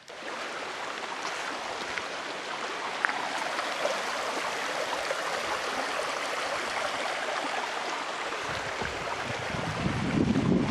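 A small stream babbling steadily over stones. Near the end, wind starts buffeting the microphone with a low rumble.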